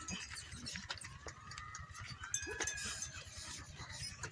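Dog howling: one drawn-out high call that rises slightly and falls again, over scattered faint clicks.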